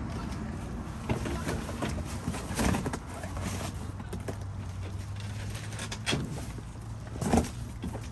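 Knocks and clatter of someone rummaging through bags and boxes inside a retail dumpster, a few separate thumps with the loudest near the end, over a steady low hum.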